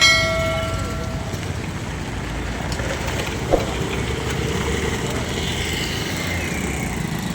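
A vehicle horn sounds for just over a second at the start, over a steady low engine rumble of traffic or road machinery, with a single sharp click about halfway through.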